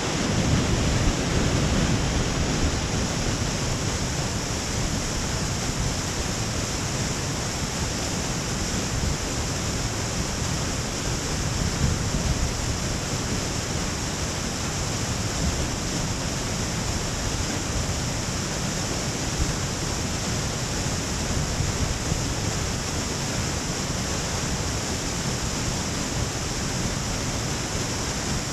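Moonlight Falls, a waterfall cascading down a granite face into a pool, giving a steady, unbroken rushing of water.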